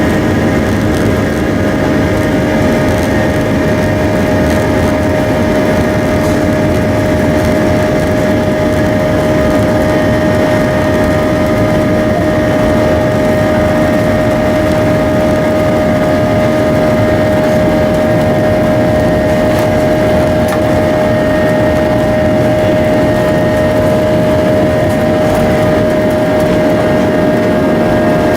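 Boeing 737 jet engines running steadily, heard from inside the passenger cabin: a constant loud rushing noise with a steady whine that does not change pitch.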